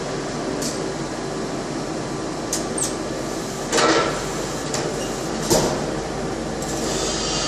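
Forklift engine running steadily, with a few metal clanks and knocks; the loudest is a rattling clank about four seconds in, followed by a sharp bang about a second and a half later.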